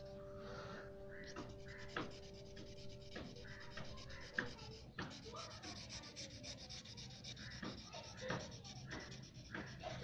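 Pencil shading on paper: faint, irregular scratching strokes, with a few light taps.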